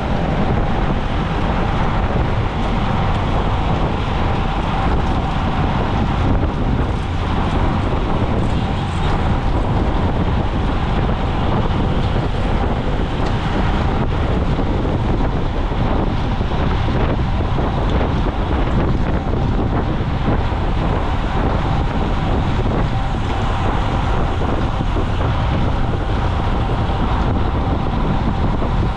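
Steady, loud wind rush on the microphone of a camera riding along with a road-bike race pack, with road and tyre noise beneath it.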